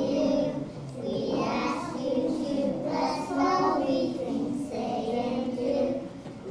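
A group of young children singing together, holding notes in a simple sung melody.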